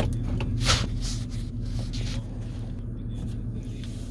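Farm tractor engine running steadily under load as it pulls a loaded grain wagon, heard from inside the cab, with a couple of short hissing noises about a second in.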